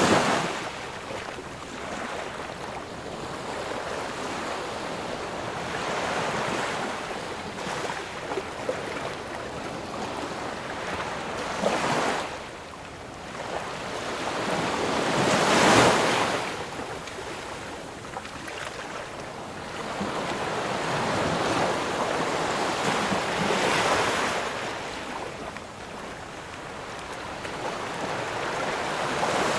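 Ocean waves breaking and washing on a shore, a steady hiss of surf with a swell cresting every few seconds; the largest wave breaks about halfway through.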